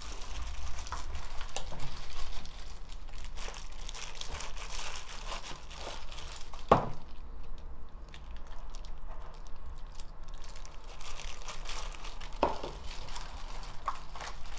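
Clear plastic gloves crinkling as gloved hands handle beef short ribs soaked in marinade and lay them into a plastic container, with wet handling noise. Scattered small clicks, and one sharp knock about halfway through.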